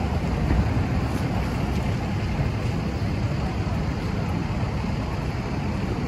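Fire engine's motor and pump running steadily as it supplies the hose line: a low, even rumble under a hiss.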